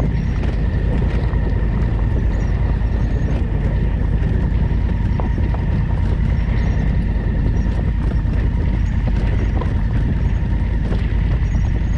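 Twin-cylinder adventure motorcycle riding at a steady pace, the engine running continuously with a steady whine, over scattered light clicks and knocks.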